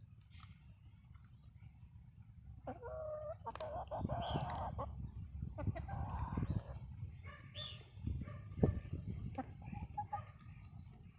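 Black Sex Link pullets clucking and calling in a run of short, pitched calls over a steady low rumble, with one sharp thump about three-quarters of the way through.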